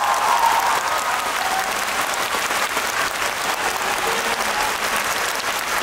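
Large concert audience applauding steadily.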